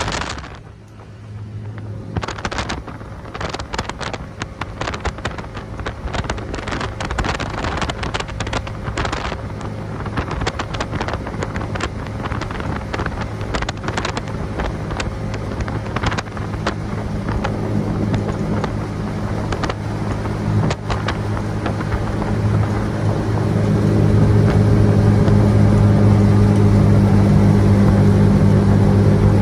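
Speedboat engine running under way with a steady low drone, with wind crackling and knocking on the microphone in the first half. About two-thirds of the way through the engine grows louder and stays there as the throttle is opened.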